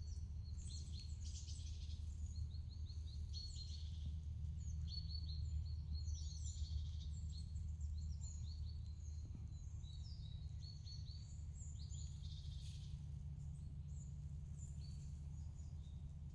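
Small birds calling: many short, high chirps and quick twittering runs, thinning out after about thirteen seconds, over a steady low rumble.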